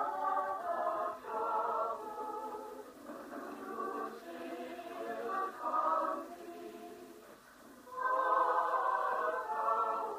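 Women's choir singing, thin in sound with no low end. The singing dies down around seven seconds in and swells to full voice again about a second later.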